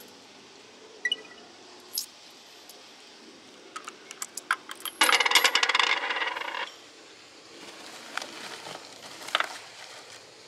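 Coins dropped into a payment box, clinking and rattling for about a second and a half midway. Before it come a few sharp clicks of coins being handled, and after it a few softer clicks.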